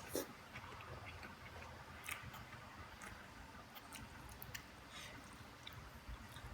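Close-up chewing of instant noodle soup and rice, with scattered small wet mouth clicks. A sharper click comes just after the start and another about two seconds in.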